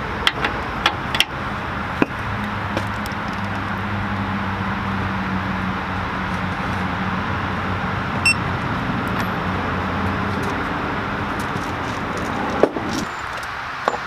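Torque wrench on a truck's brake caliper bolts: a few sharp metal clicks, a cluster in the first two seconds, one in the middle and a louder one near the end. A steady low hum runs underneath.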